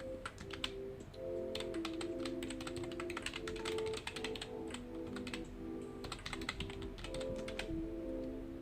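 Typing on a computer keyboard: quick runs of key clicks with brief pauses, over soft background music with held notes.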